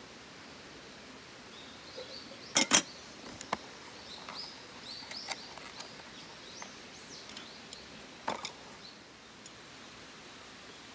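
Clicks and knocks of camp cookware being handled on a steel mesh camp table, loudest a sharp double knock about two and a half seconds in and another near the end, over an outdoor background with faint bird chirps.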